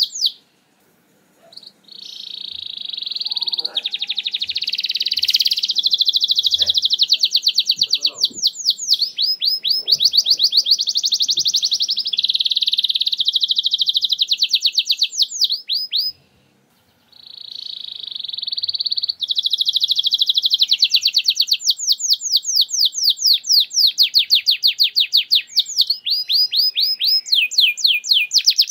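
Domestic canary singing long, loud, high-pitched phrases of very fast repeated notes, alternating between even rolls and runs of quick falling notes, with a short break about a second in and another about halfway through. This is the rapid-fire 'nembak' style of canary song played as a lure to prompt other canaries to sing.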